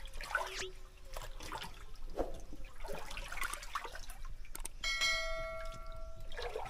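Hands splashing and sloshing in a shallow creek pool while groping among the rocks for shrimp, with irregular splashes and knocks. About five seconds in, a clear ringing tone like a bell sounds for about a second and a half.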